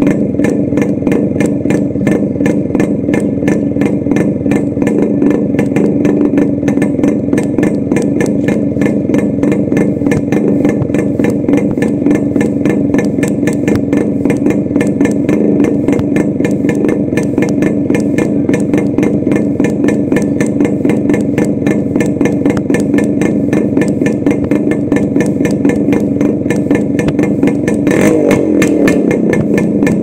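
Yamaha RX 135's two-stroke single-cylinder engine running steadily just after a kick start, with the dB killer taken out of the silencer so the exhaust is loud and open. Near the end the revs rise briefly.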